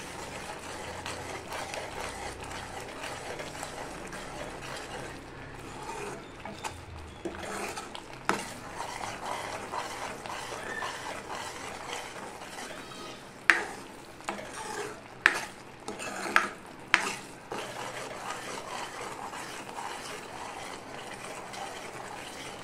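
Thick masala paste of ground onion and tomato with spices frying in a kadhai: a steady sizzle under the scrape of a spoon stirring it, as the spices are roasted (bhuna). A handful of sharp clicks of the spoon against the pan, bunched a little past halfway.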